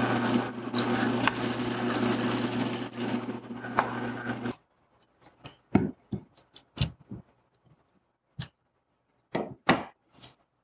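Drill press running, its bit boring into an ash board with a wavering high whine over the motor hum, which stops abruptly about four and a half seconds in. Then a handful of light knocks and taps as the wooden board and a spirit level are pressed against the wall.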